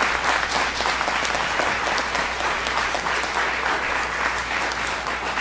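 Theatre audience applauding: many hands clapping at a steady level.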